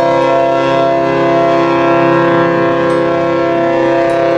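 Cruise ship's horn sounding one long, loud blast of several tones held together as a chord.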